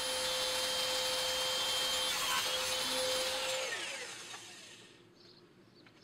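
Table saw running at full speed with a steady whine, then switched off about three seconds in, its pitch falling as the blade spins down and the sound dies away.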